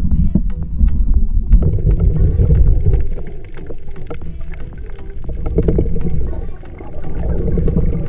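Muffled underwater rumble and water movement picked up by an action camera in its waterproof housing, heaviest in the first three seconds, with scattered sharp clicks.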